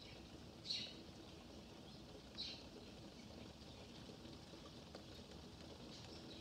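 Faint, steady rain falling, heard through a screened window, with two short high chirps, one just under a second in and one about two and a half seconds in.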